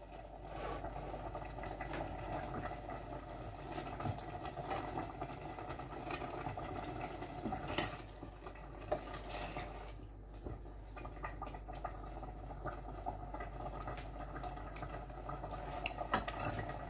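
Cassava leaf sauce simmering in a covered stainless steel pot, a steady soft bubbling. A few light metal clicks come about eight and nine seconds in as the lid is handled.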